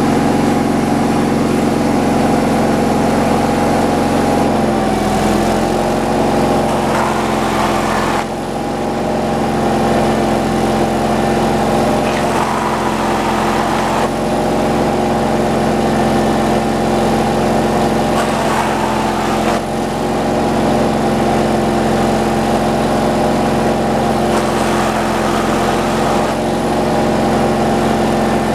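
Gas engine powering an antique Frick sawmill, running steadily. Its pitch sags briefly about four to five seconds in, as if under load.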